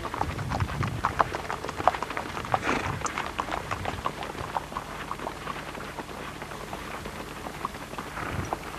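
Hoofbeats of several Icelandic horses passing at the tölt, a quick run of sharp, uneven clops.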